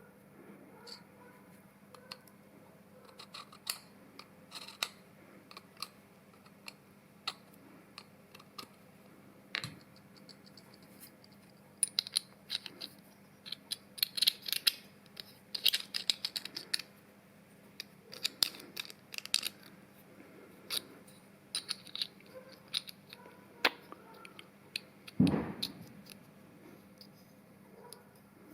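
Small metal parts clicking and clinking as they are handled and fitted together, with a heavier knock near the end, over a faint steady hum.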